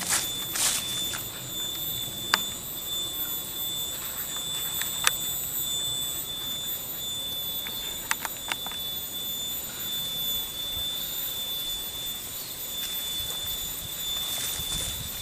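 Steady high-pitched insect drone over an outdoor hiss, with a few sharp clicks: one about two seconds in, one about five seconds in, and a quick cluster around eight seconds.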